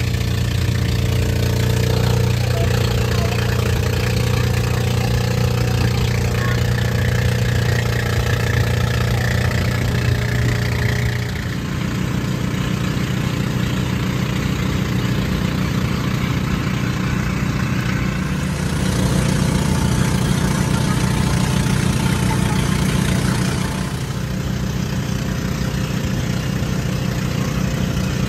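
Engine of a motorized outrigger boat running steadily while under way. Its note shifts a little under halfway through, and there is a louder stretch with more hiss a little past the middle.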